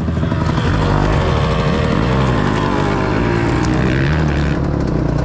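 Off-road dirt bike engine running hard, its pitch rising and falling repeatedly as the throttle is worked.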